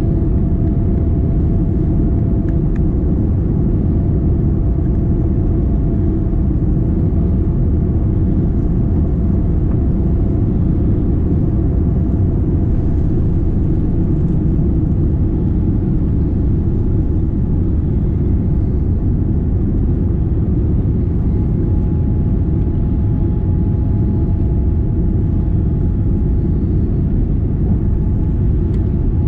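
Steady low rumble inside the cabin of a Boeing 787 Dreamliner on departure, from its GE GEnx engines and the airflow around the airframe, with a faint steady hum over it.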